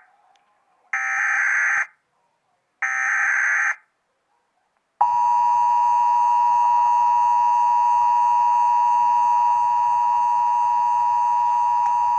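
Emergency Alert System SAME header: two harsh, buzzy data bursts of about a second each, carrying the coded Required Monthly Test message. About five seconds in, the EAS attention signal starts, a steady two-tone alert at 853 and 960 Hz.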